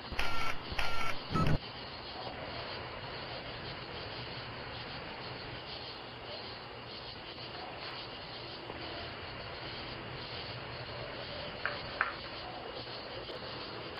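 Three short, loud electronic bursts in quick succession from a doorbell camera, over a steady hiss of outdoor background noise picked up by its microphone. Two faint clicks come near the end.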